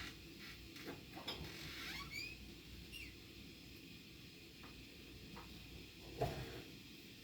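A few short, high bird chirps in the first three seconds, among faint clicks, then a single sharp knock about six seconds in.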